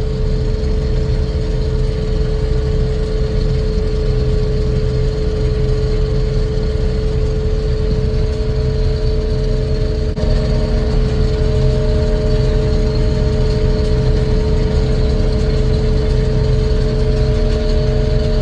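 Combine harvester running steadily while harvesting soybeans: a low engine drone under a steady whine, with a second higher whine joining about halfway through and the sound growing slightly louder.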